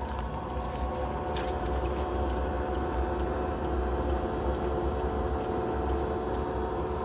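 Eberspacher BN4 gasoline heater running as it fires up: a steady whining hum from its blower over a low rumble, with a regular ticking, typical of the heater's fuel dosing pump.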